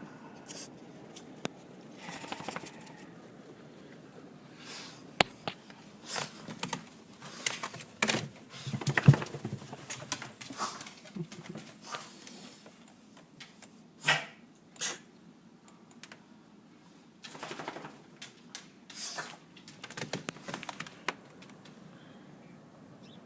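A pet dog moving about at close range: irregular sharp clicks and taps with short scuffling and snuffling noises, busiest in the middle and again a little later, settling near the end.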